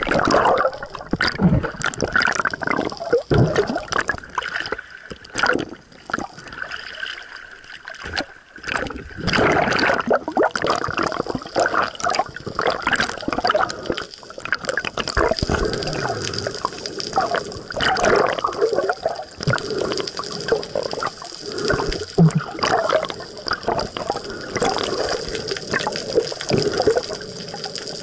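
Water sloshing, gurgling and splashing around a snorkeler's camera held at and just below the sea surface, in irregular surges with short clicks over a steady faint high hiss.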